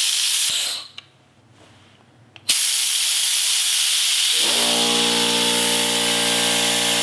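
Air-powered vacuum brake bleeder hissing as compressed shop air blows through it: a short burst that stops about a second in, then a long, loud, steady hiss from about two and a half seconds in. A steady low hum joins the hiss about two-thirds of the way through.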